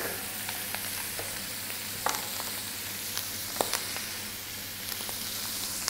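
Ptarmigan carcasses, liver, heart and vegetables sizzling steadily in a hot frying pan as they brown, with a few sharp pops and crackles.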